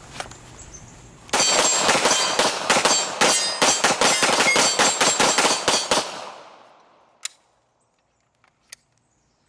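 Rapid Glock pistol fire, shot after shot in a fast string for about five seconds starting about a second in, with the steel targets clanging and ringing on the hits; the ringing dies away near the end.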